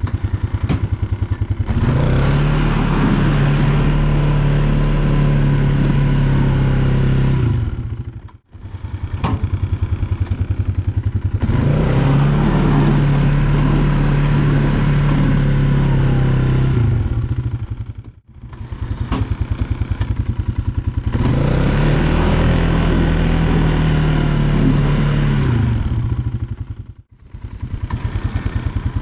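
Polaris Sportsman 570 ATV's single-cylinder engine revving up, holding a steady high speed for several seconds, then falling back, three times over as the quad makes its passes with the snow plow.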